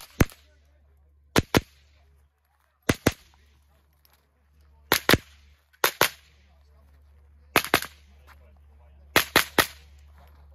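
Rapid shots from a semi-automatic .22 LR rimfire rifle with Eley Contact ammunition, fired mostly in quick pairs (double taps) about a fifth of a second apart, with a burst of three shots near the end. The pairs come every second or two, with gaps while the shooter moves between positions.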